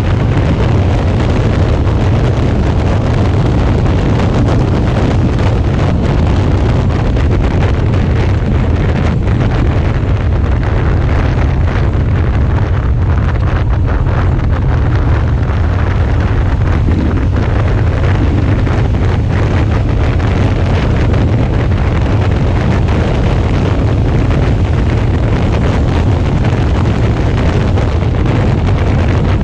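Steady wind rush buffeting the helmet or bike-mounted camera's microphone while riding a Suzuki V-Strom 650 at road speed, with the motorcycle's running and road noise underneath.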